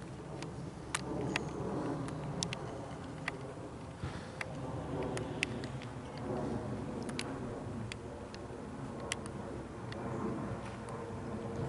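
Airbus A319-131 airliner passing high overhead on its descent, its IAE V2500 jet engines heard as a steady low rumble, with scattered sharp ticks over it.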